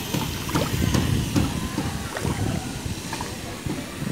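Wind rumbling on the microphone, with a few faint clicks.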